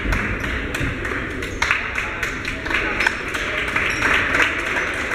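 Many overlapping voices of spectators and players chattering in a large gymnasium, with scattered short sharp clicks and claps.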